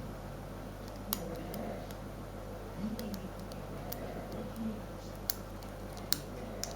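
Lock pick and homemade tension wrench working the pins of a five-pin bike lock cylinder during single-pin picking: light metallic scraping with a handful of sharp, separate clicks.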